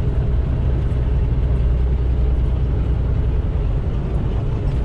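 Semi truck's diesel engine and road noise heard inside the cab while driving at highway speed: a steady low drone.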